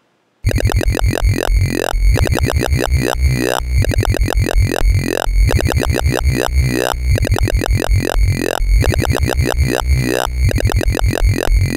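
Talking-bass patch from Ableton Live's Operator FM synthesizer playing a rhythmic bass line. It starts about half a second in: a deep bass under quick, repeating pitch sweeps that give it a wobbling, vowel-like "talking" tone.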